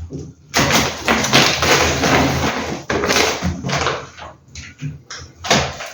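Grocery bags and produce being handled as shopping is unpacked: a rustle of about two seconds, then shorter rustles and knocks.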